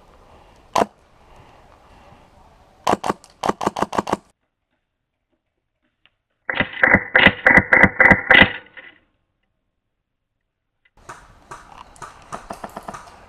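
Airsoft rifle fire: a single shot, then bursts of rapid shots at about six or seven a second. The loudest and longest burst comes about halfway through and carries a sharp ringing tone. A fainter burst comes near the end.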